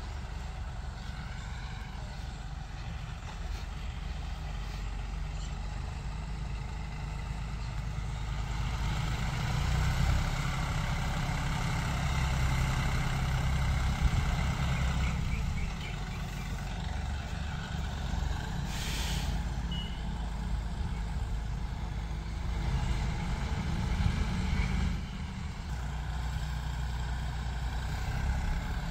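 John Deere 5050D tractor's three-cylinder diesel engine running steadily under load while pulling a tine cultivator through wet soil, its rumble growing louder for a while in the middle. A brief hiss about nineteen seconds in.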